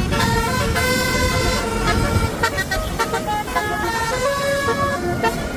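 Bus "telolet" musical air horn playing a quick tune of changing notes, over the low rumble of engines.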